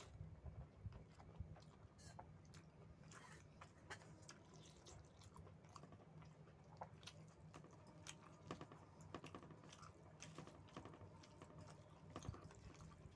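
A person chewing mouthfuls of rice and chicken curry: faint, irregular wet clicks and smacks of eating.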